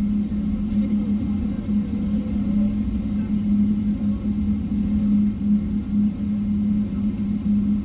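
Cabin noise inside a Boeing 777-300ER on final approach: a steady low rumble of the GE90 engines and rushing air, with a constant hum running under it.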